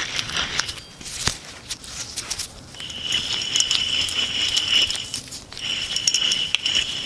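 Worn rear wheel bearing in a removed Honda Accord hub assembly being spun by hand. It starts with clicks and crackles as it is handled, then gives a steady, gritty high whir, twice, with a short break in between. The noise is the sign of a bad bearing.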